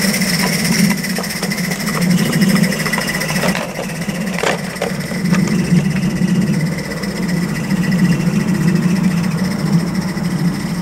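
Mamod Double Fairlie live-steam locomotive running in steam: a steady low hum with thin high hissing tones over it, and a few clicks about four and a half seconds in.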